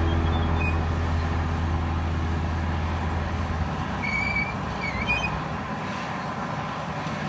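Komatsu D65PX bulldozer's diesel engine running, with a deep low drone that drops away about three and a half seconds in, leaving a quieter, steady engine noise. A few short high chirps are heard around the middle.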